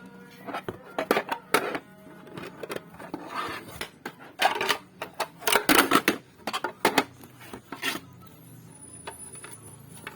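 Packaging and items being handled by hand: irregular rustling and clattering with several sharp knocks, busiest about halfway through.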